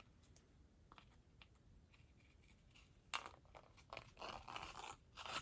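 Scissors cutting paper: a few light clicks, then a run of short snips from about three seconds in.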